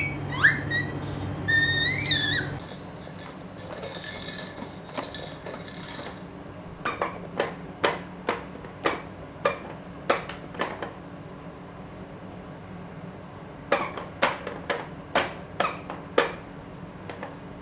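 A baby's short, high, rising squeals, then a run of sharp, evenly spaced taps, about one or two a second, in two bursts.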